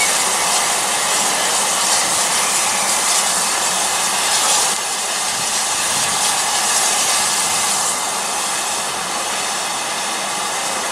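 Steam locomotive letting off a steady hiss of steam, with white steam escaping low at the front by the cylinders. The hiss dips slightly about five seconds in.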